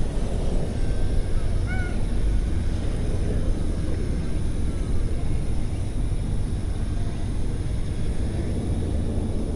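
Cat purring steadily, a low rumble close to the microphone.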